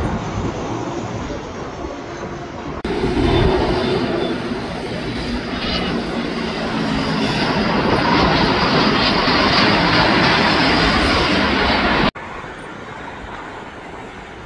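Jet aircraft engine noise from edited plane-spotting clips. About three seconds in it cuts to a louder, steady jet sound from a small business jet on approach, which builds slowly. About twelve seconds in it cuts abruptly to a quieter, distant airliner jet rumble.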